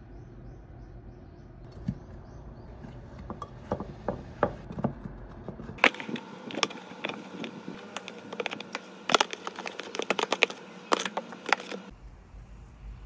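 Knife work on watermelon with a few scattered knocks. Then, from about six seconds in, a quick run of clicks and knocks as watermelon chunks are tossed into plastic food containers.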